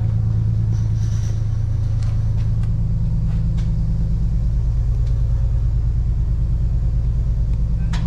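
A steady, low mechanical drone that stays even in pitch throughout, with a few faint clicks and taps over it.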